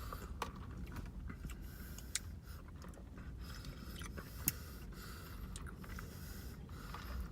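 Quiet sipping and chewing of boba milk tea, with scattered small mouth clicks, two of them sharper, over a steady low room hum.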